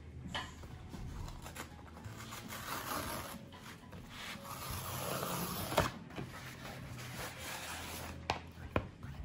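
Cardboard mailer envelope's tear strip being pulled open, a rough rasping rip of cardboard that builds over a few seconds, with a sharp click at its end. Near the end, a couple of sharp taps as the cardboard box inside is slid out.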